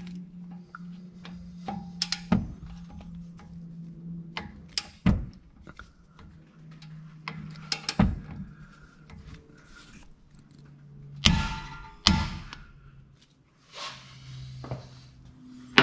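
Torque wrench tightening the 19 mm brake caliper mounting bolts to 80 foot-pounds: a series of sharp metallic clicks and knocks, the loudest two about 11 and 12 seconds in, over a steady low hum.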